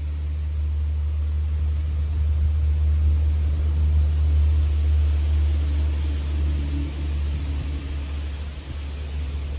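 Wind buffeting the microphone: a steady low rumble that swells around the middle and eases toward the end.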